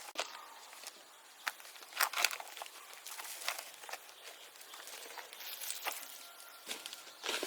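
Irregular crunching and scraping from manual work, with scattered sharp clicks and knocks, thickest about two seconds in and near the end.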